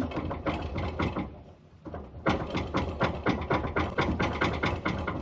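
Rapid, even mechanical clatter, about eight knocks a second, over a steady low hum, pausing for about a second near the start.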